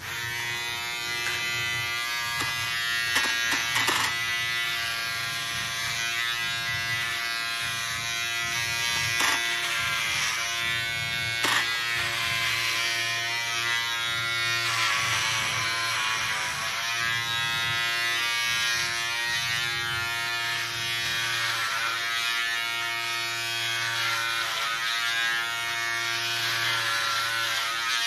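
Electric hair clipper switching on and buzzing steadily as it shaves long hair off a scalp. Its pitch dips briefly about halfway through, and a few sharp clicks come in the first dozen seconds.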